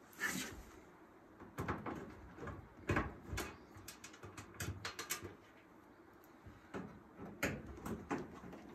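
Scattered light clicks and knocks of a Klein 11-in-1 screwdriver turning Torx screws out of a dryer's metal door bezel, with the tool and screws handled between turns.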